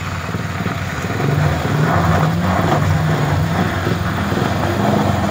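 A vehicle engine running steadily, revving up a little over a second in and then holding a higher, wavering pitch, as under load.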